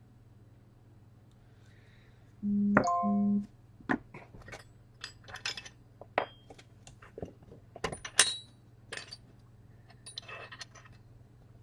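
A low electronic buzz of about a second with a short break, about two and a half seconds in, then a run of light clicks, taps and small metallic clinks of hand tools on a micro-soldering bench.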